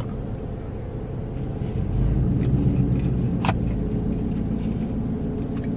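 Steady low road and engine rumble inside a moving car, growing louder about two seconds in, with a single sharp click midway.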